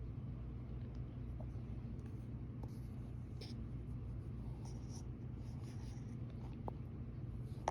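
Scented cornstarch being pressed and rubbed between the fingers, a soft scratchy squeak with a few faint crackles, over a steady low hum.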